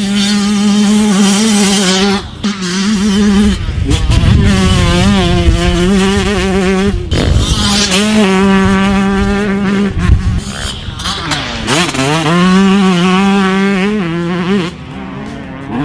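Single-cylinder two-stroke engine of a 2018 Yamaha YZ125 motocross bike running at high revs under a rider, its pitch wavering as the throttle is worked. Revs drop sharply and climb back up about four times as the throttle is chopped and reopened.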